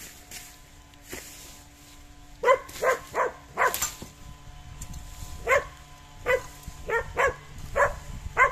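A dog barking about ten times in two runs, starting a couple of seconds in, with a pause of over a second between the runs.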